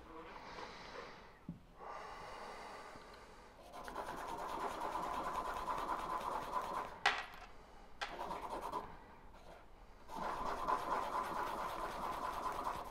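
A small stamped metal knife pivot washer being rubbed on a sharpening stone to lap it flat, a soft gritty scraping that comes in several stretches of one to three seconds with short pauses between. A single sharp click sounds about seven seconds in.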